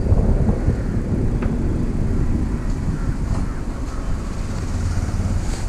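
Car driving slowly along a road: steady low engine and tyre rumble.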